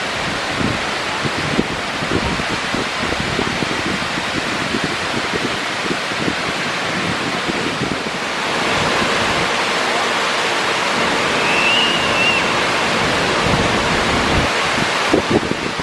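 Artificial waterfall pouring down a rock cliff: steady rushing of falling water that gets louder about halfway through. A brief high chirp sounds once late on.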